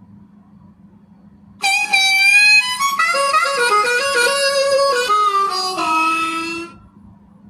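A short musical sound effect: reedy, horn-like held notes begin about a second and a half in and step down in pitch through several notes, ending on a low note after about five seconds.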